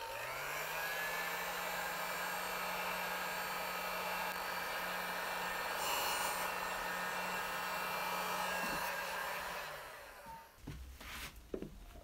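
Electric heat gun switched on, its fan spinning up in the first second to a steady blowing hum, then switched off about ten seconds in and winding down. A few light knocks follow near the end.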